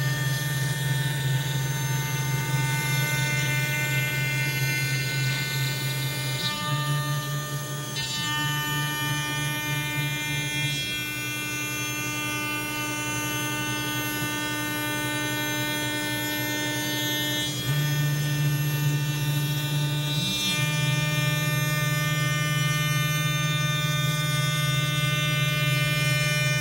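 CNC router spindle running as its bit cuts along the edge of a 3/4-inch walnut workpiece. A steady machine whine with many overtones that shifts in pitch pattern several times as the load changes, easing for a few seconds in the middle before coming back up.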